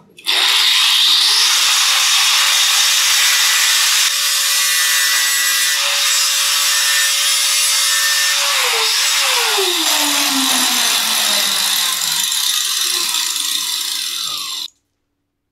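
Angle grinder spinning up and cutting a piece off the concealed mixer's fitting: a harsh, loud hiss over the motor's steady whine. About nine seconds in the whine drops steadily as the disc winds down, and the sound stops abruptly near the end.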